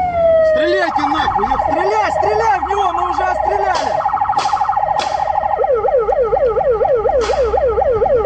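Police car siren changing modes: the tail of a slow falling wail, then a rapid warble about a second in, then a fast yelp sweeping up and down about five times a second over the last few seconds.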